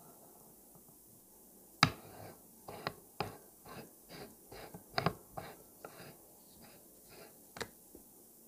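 Steel blade prying the bezel off a vintage Omega Seamaster 120 watch case: a sharp metallic click about two seconds in, then a run of lighter clicks, two or three a second, as the blade works around the rim until the bezel comes free.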